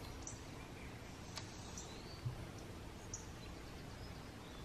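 Faint outdoor background hiss with small bird chirps, short high notes and a few rising ones, every second or so; a single sharp click about a second and a half in.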